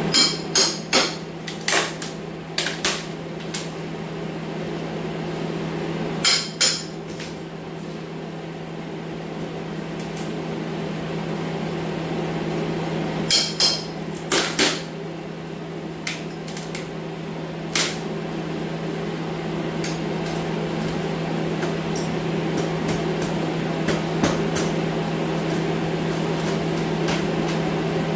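Hammer and pry bar knocking and prying wood strapping off the base of a cinderblock wall, in several short clusters of sharp strikes with lighter taps between. Under it runs the steady hum of an air scrubber.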